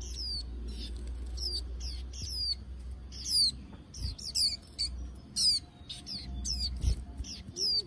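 Young white-eyes chirping: a quick run of short, high chirps, each sliding down in pitch, several a second.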